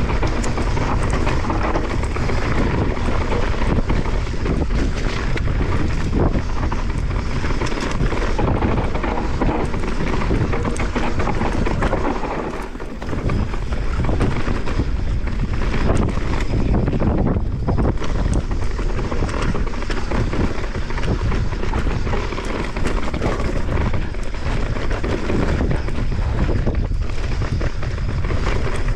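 Wind rushing over the camera microphone together with the tyres and frame of a Santa Cruz Megatower mountain bike rumbling and rattling down a rocky dirt trail, with frequent knocks and clatters as it hits stones and bumps.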